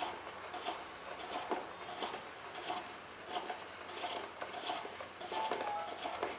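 Plastic hand-crank juicer being turned, its auger crushing pomegranate: a rhythmic rubbing, grinding stroke about every two-thirds of a second, with a short squeak near the end.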